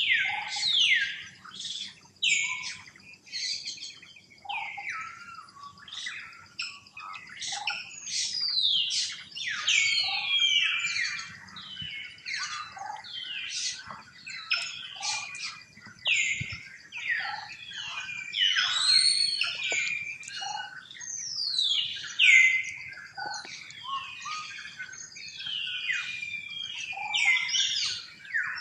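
Outdoor bird chorus: many overlapping high chirps and quick downward-sweeping calls, with a few lower short notes mixed in.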